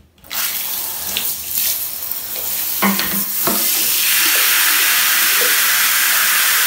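Water from a handheld shower head running and spraying onto a bathtub floor by the drain, with a few knocks in the first half; the spray grows louder and steadier about four seconds in.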